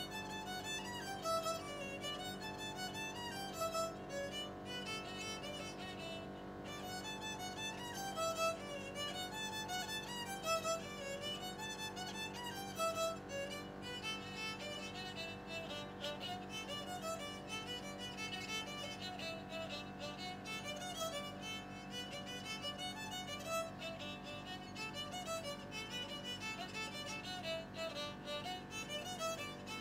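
Violin bowed in a quick, lively jig melody of running notes, over a steady low sustained backing underneath.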